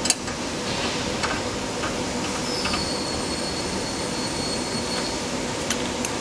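Steady background hum and hiss with a thin high whine through the middle, and a few faint clicks of a bolt being fitted into a bracket.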